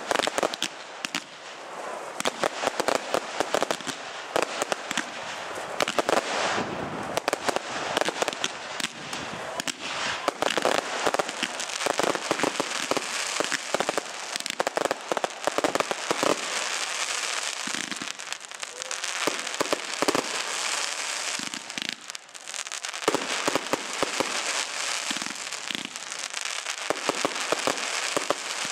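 Firework display going off: a dense, continuous run of crackling and sharp bangs, many a second, with a crackling hiss between them.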